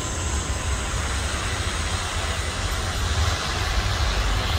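Distant jet airliner engines: a steady rumble with a hiss above it, growing slowly louder.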